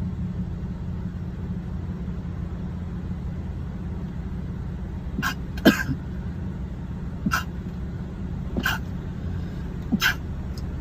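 A boy sneezing: about five short, sharp sneezes from about halfway through, the first the loudest, over a steady low hum.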